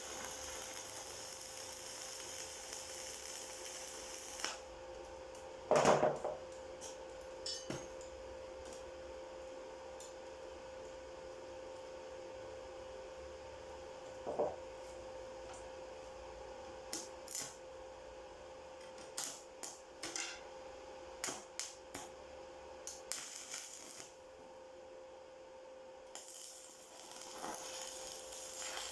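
Welding work: a steady electrical hum with scattered metal clinks and knocks. A hiss runs for the first few seconds and comes back near the end.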